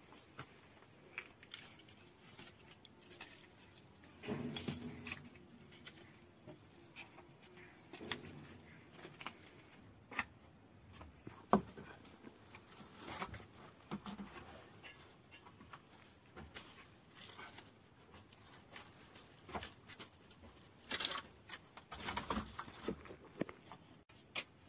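Dry, thorny brushwood being handled and pushed down into a clay tandoor oven pit: scattered rustling, scraping and snapping of twigs against the earthen walls, with one sharp crack about halfway through.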